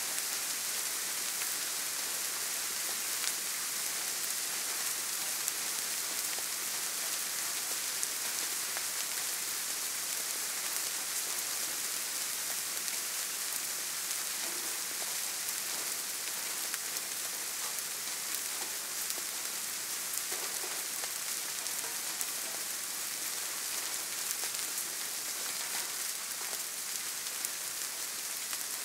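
Soft, steady rain: an even hiss of many small drops, with the odd single drop tick standing out now and then.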